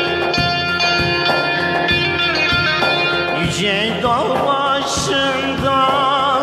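Electric saz (bağlama) playing a plucked melody over a steady backing beat; about halfway through a man's voice comes in, singing with a wavering vibrato over the instrument.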